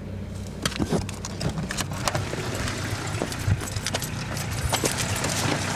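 A handheld camera being jostled and moved about: a dense, irregular run of clicks, knocks and rustling over the steady hum of a car engine idling.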